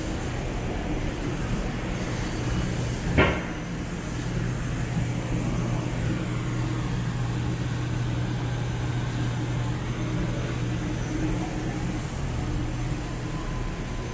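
City street traffic: a steady low engine hum from idling and passing vehicles over general traffic noise, with one sharp knock about three seconds in.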